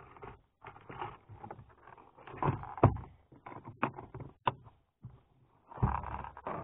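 Irregular knocks and clatter of fishing gear being handled in a small boat, with the loudest knock just under three seconds in and a denser patch of clatter near the end.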